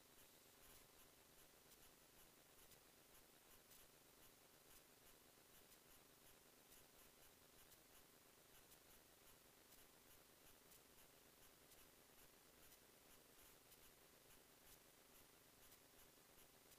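Near silence: a faint, even hiss with faint irregular ticks.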